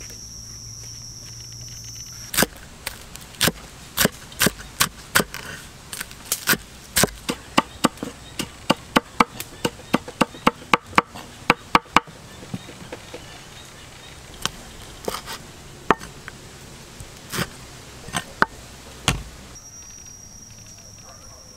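Knife chopping on a board: a run of sharp strikes that starts about two seconds in, quickens to about two a second, then thins to a few scattered strikes. Insects chirr in a steady high tone before the chopping starts and again after it stops near the end.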